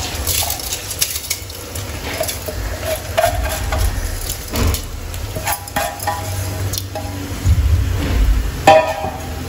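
Metal spoon scraping, knocking and clinking against a cooking pot as soaked rice is tipped into boiling water and stirred in. A few clinks ring briefly, the sharpest near the end.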